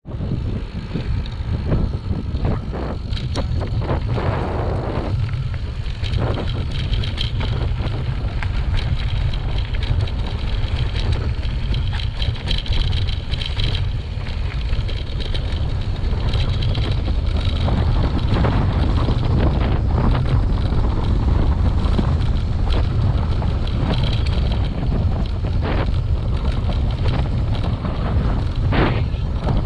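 Wind buffeting the microphone of a riding mountain bike's camera, a steady low rumble, with frequent short knocks and rattles as the bike runs over the rough dirt singletrack.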